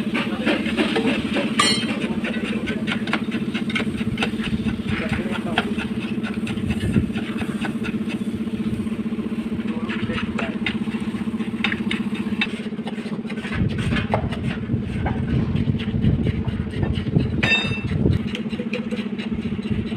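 An engine running steadily at idle, a constant low hum, with scattered short clicks and scrapes over it. The low rumble grows heavier about two-thirds of the way through.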